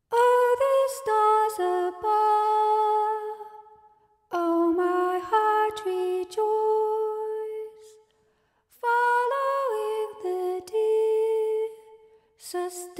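A single unaccompanied voice singing a slow, lullaby-like melody of held notes that step from one pitch to the next, in three phrases separated by short pauses.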